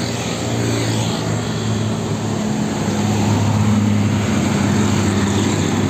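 Heavy truck pulling a trailer drives past, its diesel engine running with a steady low drone.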